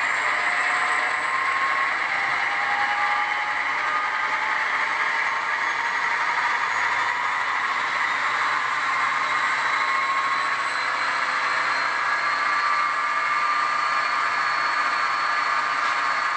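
ESU LokSound sound decoder in an HO-scale EMD SD45 model, playing the 20-cylinder EMD 645 prime mover through the model's small speaker. It is notching up under load as the locomotive pulls against a pull meter, with a slowly rising whine, and a deeper note comes in about seven seconds in.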